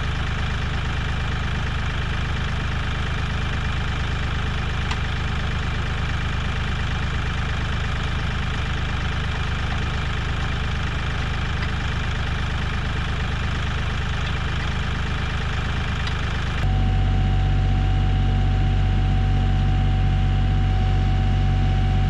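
Kioti 3510 compact tractor's diesel engine running steadily, powering a three-point-hitch log splitter. About three-quarters of the way through the sound jumps a little louder, and a steady whine joins the engine.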